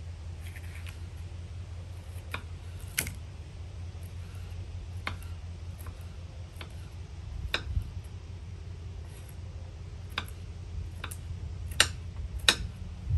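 Knife slicing a red bell pepper on a wooden cutting board: scattered sharp taps of the blade on the board, a second or two apart, the loudest two near the end, over a low steady hum.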